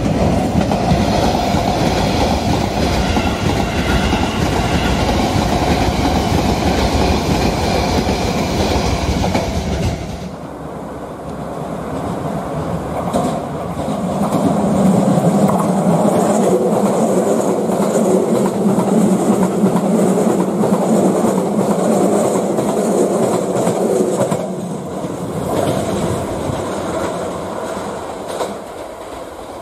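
Keisei Skyliner AE-series electric express train running by on its track. The sound changes abruptly about ten seconds in and again near 24 s, as separate passes are joined together.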